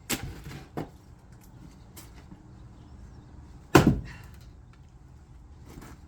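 Wood being chopped by hand: two hard chopping blows into a log about three and a half seconds apart, with a few lighter knocks between them.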